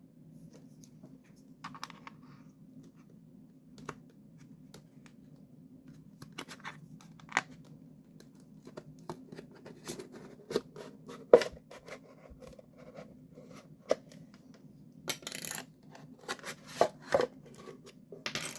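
Hands working on the small plastic parts of a speaker control panel: scattered clicks, taps and short scraping rasps, busier in the second half, with two longer scrapes near the end. A faint steady low hum runs underneath.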